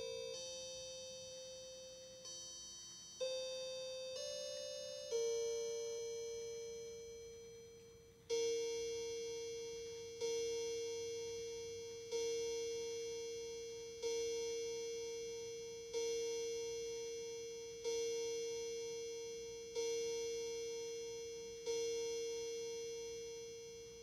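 Linden chime clock finishing its chime tune in clear ringing notes of different pitch, then striking the hour: eight evenly spaced strikes of one note about two seconds apart, each ringing on and fading.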